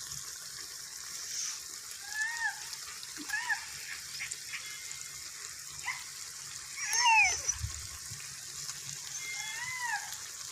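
An animal's short whining calls, each rising and falling in pitch, heard four or five times with the loudest cluster about seven seconds in, over a steady background hiss.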